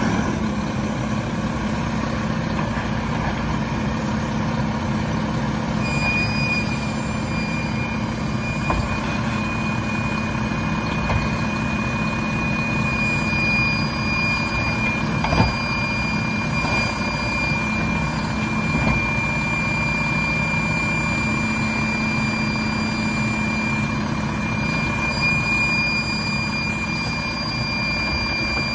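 Mack LEU McNeilus Autoreach automated side-loading garbage truck running steadily. A thin, steady high whine comes in about six seconds in and holds, and a single sharp knock sounds about halfway through.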